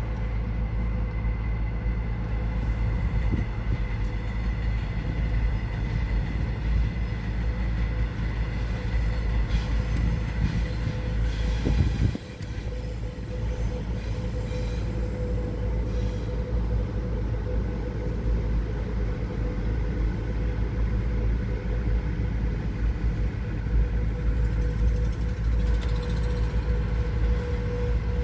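Trains running through a station, passing each other: a continuous rumble of wheels on rails with a steady humming tone over it.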